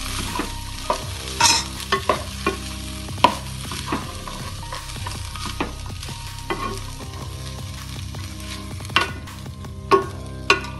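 Slotted wooden spatula scraping and knocking against a kadai as green-pea sundal is stirred and sautéed, in irregular strokes over a soft sizzle, mixing the masala through and drying out the peas. A steady low hum runs underneath.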